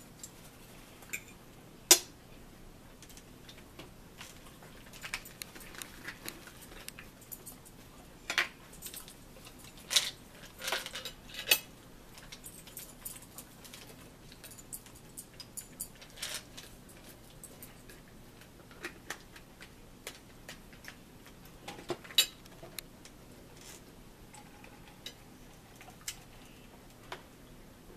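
Forks clinking and scraping against plates while eating, with scattered sharp clicks and light rattles, a few of them much louder than the rest.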